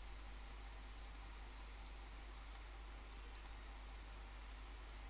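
Faint, irregular light clicks, about two a second, from computer controls as a 3D view is steered, over a steady low mains hum and microphone hiss.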